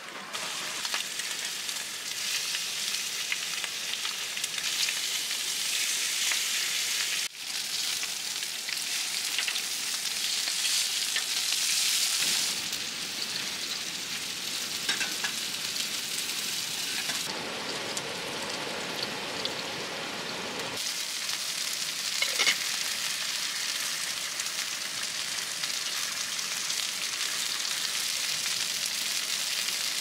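Sausages and an egg frying on a griddle pan over a portable gas stove: a steady sizzle, heard in several edited stretches that change in character, with a brief sudden break about a quarter of the way in.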